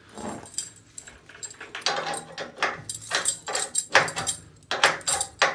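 Open-end wrench clinking against the brass nut of the main burner gas tube as it is tightened into a water heater's gas control valve. It starts about two seconds in as a series of sharp metallic clicks, several a second.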